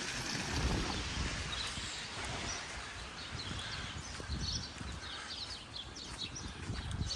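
Outdoor snowstorm ambience: wind rumbling on the microphone, with small birds chirping briefly and repeatedly from about halfway through.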